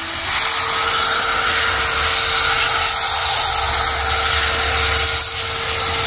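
Electric air blower running steadily, a single motor whine over a loud rush of air, blowing dust out of an opened laptop.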